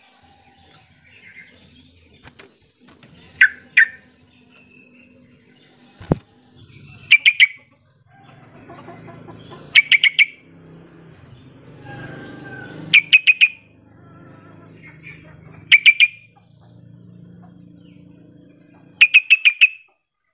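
Yellow-vented bulbul (trucukan) calling: loud bursts of three to five quick, chattering notes every few seconds, with a few softer calls in between. A single sharp click sounds about six seconds in.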